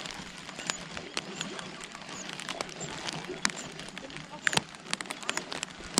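Heavy rain falling steadily, with many scattered small ticks of drops striking close by.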